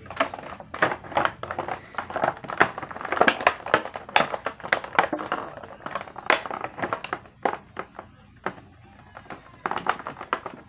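Close handling noise: a rapid, irregular run of crinkles, clicks and knocks, with gaps that grow longer toward the end.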